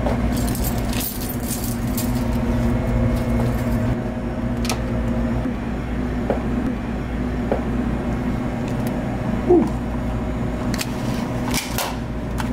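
A ring of keys jangling, then scattered plastic and metal clicks as a vending machine's bill validator cash box is unlatched and pulled out, over a steady low hum from the refrigerated vending machines.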